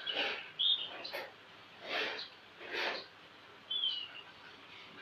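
A fresh banana leaf crinkling in the hands as it is folded into a cone: four short rustles about a second apart. A bird chirps twice in the background.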